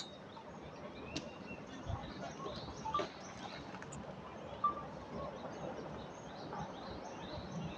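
Scattered bird chirps and calls over a steady low background hiss, with a couple of faint clicks.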